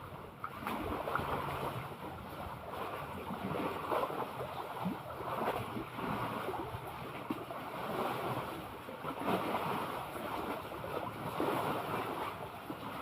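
Sea water washing and lapping, with wind buffeting the microphone.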